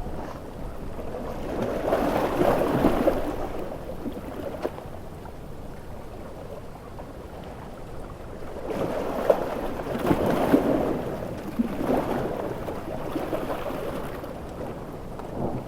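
Sea waves surging and breaking in swells of splashing water, once early and again in a longer surge through the second half, over a steady hiss of heavy rain.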